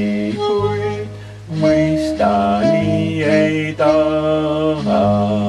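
A voice singing a slow, sustained melody in Estonian over steady held notes of instrumental accompaniment.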